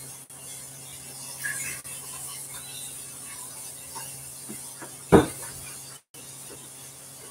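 Faint tapping and rubbing of a diamond-painting drill pen picking up and pressing resin drills onto the canvas, over a steady low hum, with one loud short knock about five seconds in.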